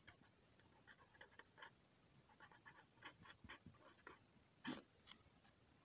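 Faint scratching of a pen writing on paper: a run of short strokes, with two sharper ones near the end.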